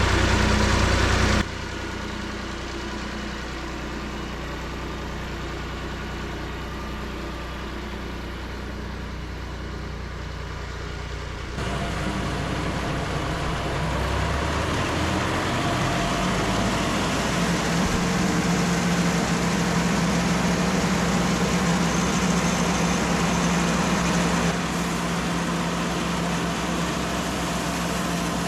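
Bandsaw sawmill running, its engine humming steadily. About a dozen seconds in the sound changes suddenly and grows louder and fuller, with a hiss over the hum, as the band blade saws through a red oak log.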